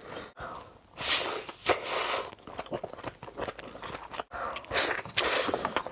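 Close-miked ASMR chewing of a big mouthful of white rice: wet mouth sounds and smacking in several short bursts.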